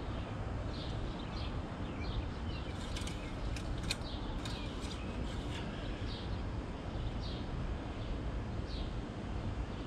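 Outdoor ambience of scattered short bird chirps over steady low background noise, with a few light clicks about three to five seconds in as the oil dipstick is pulled and handled.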